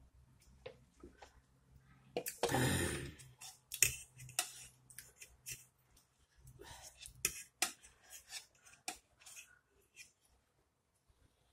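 Steak knife and fork clicking and scraping against a plate while a huarache is cut up, in irregular short strokes. About two and a half seconds in comes a louder noise lasting under a second.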